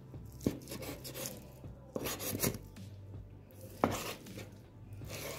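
Knife cutting raw boneless chicken into cubes on a wooden cutting board: about four sharp knocks of the blade striking the board, with rasping slicing and scraping sounds between them.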